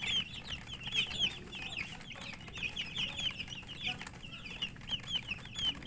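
A group of domestic chicks peeping continuously, many short high-pitched chirps overlapping, with faint pecking clicks underneath.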